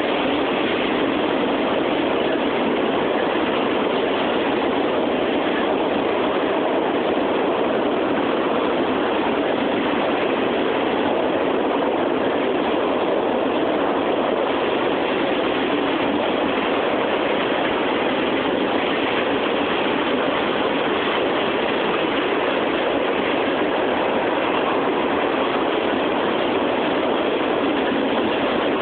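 Cars of a CSX mixed freight train rolling past on the track: a steady, unbroken noise of wheels on rail that neither rises nor falls.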